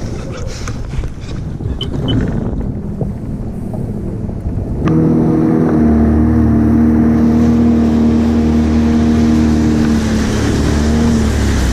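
Sea-Doo Spark jet ski running on the water, with wind and water noise for the first few seconds. About five seconds in, after a click, it settles into a louder, steady engine drone at constant throttle while under way.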